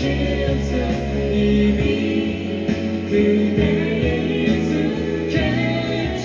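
Live pop band music with singing, the chords changing about two seconds in and again near the end.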